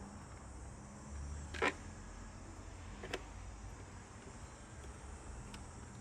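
Two short clicks, the first louder, about a second and a half apart, over a faint low hum.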